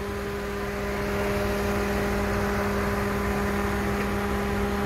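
A steady mechanical hum at one low pitch with overtones, getting slightly louder about a second in.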